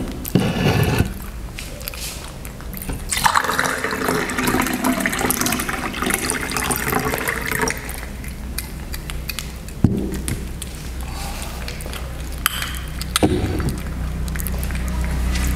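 Water poured from a glass carafe into a stemmed glass, running for about four and a half seconds. Glass knocks on a wooden table come at the start and twice later as the glass and the carafe are set down.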